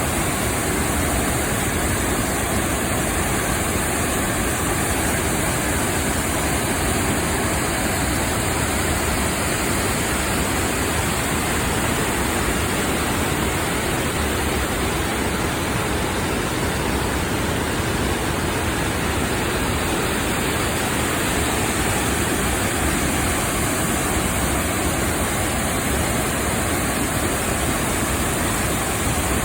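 Three-tiered waterfall: water pouring over rock ledges in a steady, unbroken rush.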